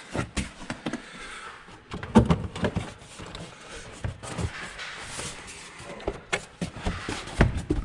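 Plastic engine cover being fitted back over the engine and pressed into place: scattered clicks and knocks, with the loudest clunks about two seconds in and again near the end.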